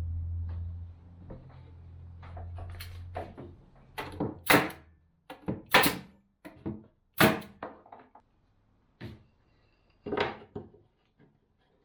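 A low steady hum that fades out about four seconds in, then a string of about ten sharp knocks and thuds, the loudest in the middle.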